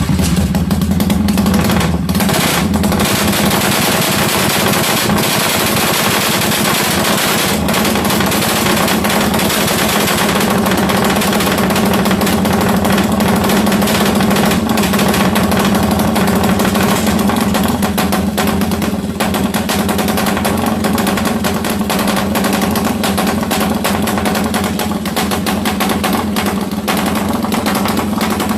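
Suzuki Satria FU motorcycle engine, a single-cylinder four-stroke big-bored with an 87 mm piston, running at a steady speed with a rapid, choppy firing beat that sounds like a helicopter.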